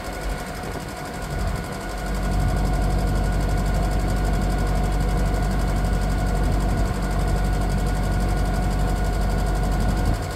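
Septic vacuum truck's engine and vacuum pump running steadily while drawing liquid out of a tote, with a steady whine over a low engine drone; it gets louder about two seconds in. The pump is working: the tote's level is going down.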